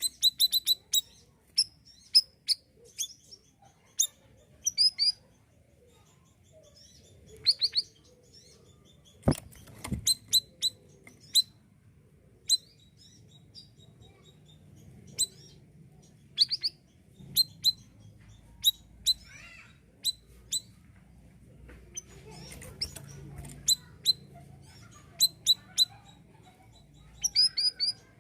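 Male siri-siri songbird in full song: short, sharp, high chirps, some single and some in quick runs of two to four, with short pauses between. Two sharp knocks just after nine and ten seconds in.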